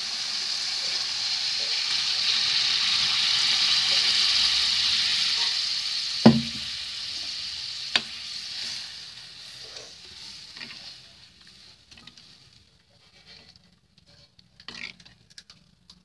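Water poured into a hot kadhai of fried masala and peas sizzles loudly, the hiss swelling over the first few seconds and then dying away as the gravy is stirred. A sharp knock of the metal ladle against the pan comes about six seconds in, and a lighter click follows soon after.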